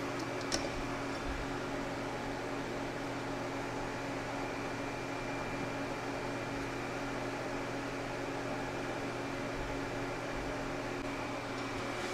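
Steady hum of a running cooling fan, with one faint click about half a second in.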